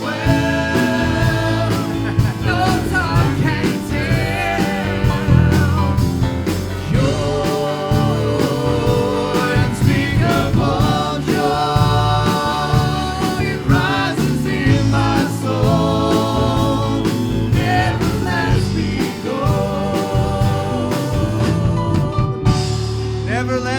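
Live gospel worship song: a voice singing over band accompaniment with a steady beat.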